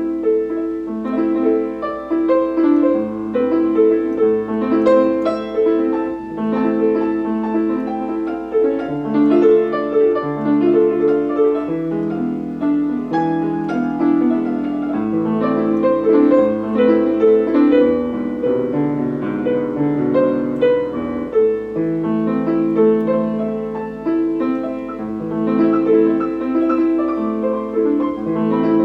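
Steinway piano sound played continuously: a piece of many overlapping notes, mostly in the middle register, with no pause.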